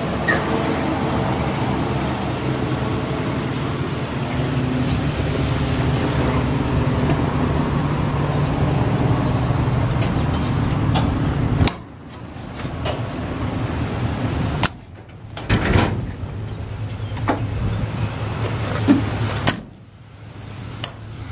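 Ford F-250 pickup's engine idling steadily. From about halfway, a few sharp clicks and knocks come from the service body's compartment door latches and doors being handled.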